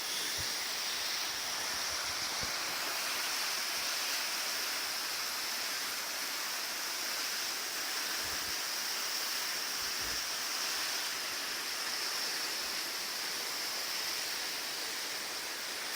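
Steady rush of a waterfall, its water still running in open channels through the winter ice.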